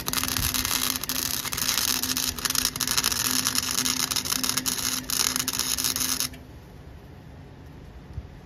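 Flux-core wire welder arc crackling steadily while laying a weld on the chipper shredder's broken branch chute, with a steady hum underneath. The arc stops about six seconds in.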